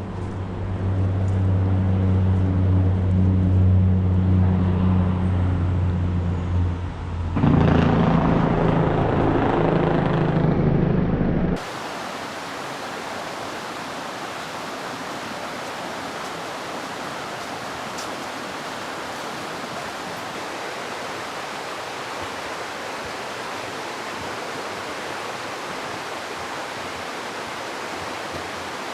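A vehicle driving, its engine a steady low hum with road noise that grows louder about seven seconds in. About halfway through it cuts off abruptly to the steady rushing of a flowing creek.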